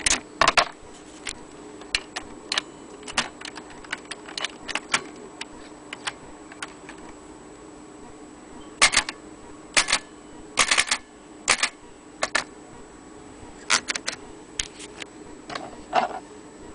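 Keys of a vintage Imperial Good Companion 3 manual portable typewriter being struck in irregular runs of sharp clacks, with a pause of about two seconds just after the middle.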